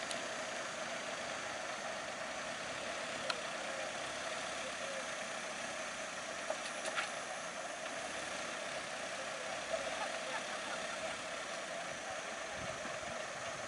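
Bus engines idling steadily, with a few short clicks.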